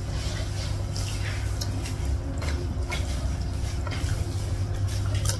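Close-up eating sounds: fingers gathering wet rice and sauce from a plate, then chewing, heard as a scatter of short wet clicks and smacks. A steady low hum runs underneath.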